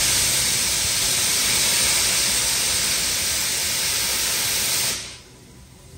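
Steam locomotive letting off steam in a loud, steady hiss that cuts off about five seconds in.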